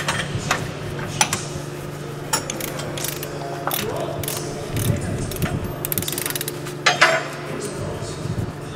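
Irregular sharp metallic clanks and clicks, a few ringing briefly, the loudest about seven seconds in, over a steady low hum.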